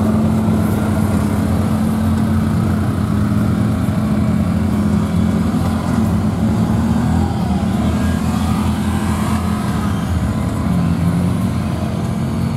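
Off-road vehicle engines running steadily, the note dipping and swelling a few times as a side-by-side works through a water-filled mud hole and a lifted mega truck follows.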